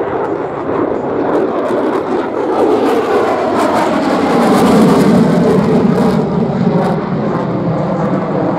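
Single-engine F-35A Lightning II's F135 turbofan heard as the jet flies past, a continuous jet roar that builds to its loudest about five seconds in and then eases off.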